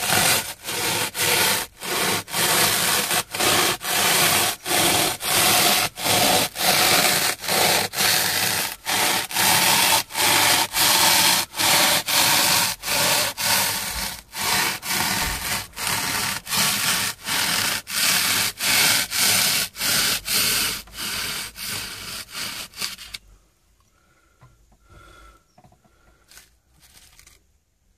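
Small serrated hand saw cutting through hardened expanding foam, in steady back-and-forth rasping strokes about one and a half a second. The sawing stops about 23 seconds in, followed by a few faint handling sounds.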